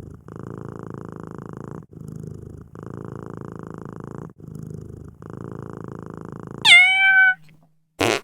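A cat purring in long, even strokes with short breaks between them. About seven seconds in comes a loud, high meow that falls in pitch, and near the end a short, sharp burst of noise.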